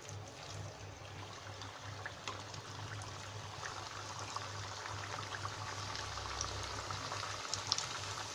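Hot oil sizzling and bubbling around rice-flour chakli (murukku) spirals deep-frying in a kadai, growing gradually louder, with a few small ticks near the end.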